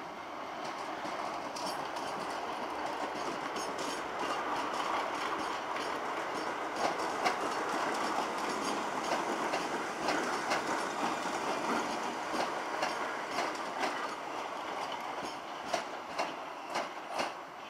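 South West Trains Class 455 electric multiple unit running along the platform, a steady rumble of wheels on rail with clacks over rail joints and points that come more often in the second half.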